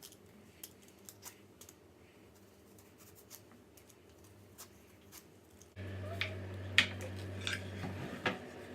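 Scattered light clicks and scrapes of kitchen handling. About six seconds in, the background jumps louder with a steady low hum and more clicks.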